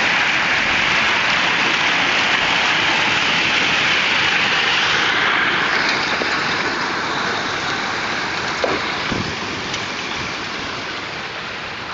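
Hail and rain pelting down in a dense, steady rush that slowly eases over the second half, with a couple of sharper knocks a little after halfway.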